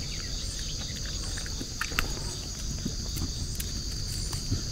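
Steady high-pitched chorus of insects, an unbroken shrill drone, over a low rumbling noise with a few faint clicks.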